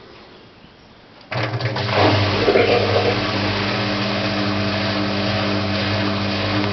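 Siemens washing machine starting up abruptly about a second in and then running with a steady motor hum.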